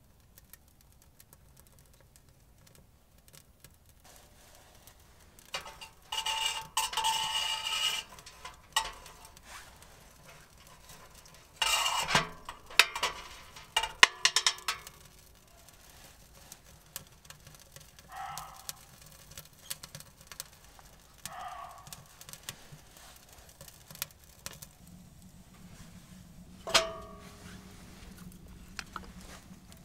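Sticks of kindling rattling and clinking against a steel wood stove as the fire is fed, with the small crackle of catching birch bark and twigs. A few short barks from muntjac deer come in the second half, a few seconds apart.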